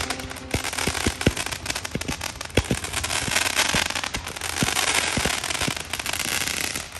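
Fireworks going off: many sharp bangs and crackles in quick, irregular succession, with a dense crackling hiss between the louder reports.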